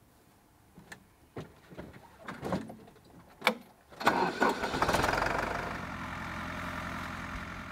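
A few knocks and clicks, then about four seconds in a Fendt 208 P tractor's diesel engine starts with a burst and settles into a steady idle.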